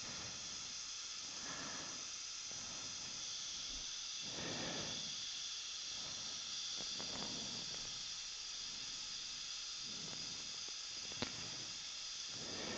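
A steady high hiss, with soft swells every couple of seconds beneath it and a single small click about eleven seconds in.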